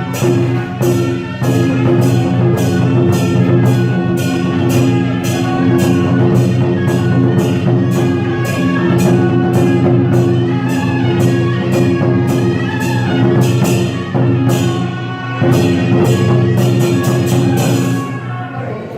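Traditional Taiwanese temple music: a sustained pitched melody over a regular beat of sharp percussion strokes. The music drops away near the end.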